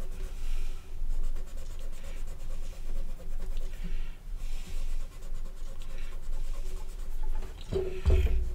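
Very fine 0000 steel wool scrubbing back and forth on the oiled steel of a Carcano rifle, a continuous scratchy rasp as it rubs spattered paint off the metal. A brief low thump comes near the end.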